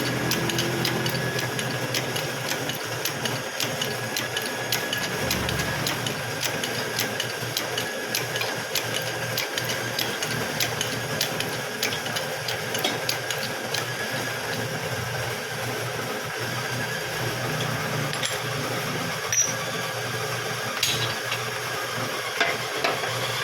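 Steady, rapid mechanical ticking from a running machine, with a faint steady tone beneath it.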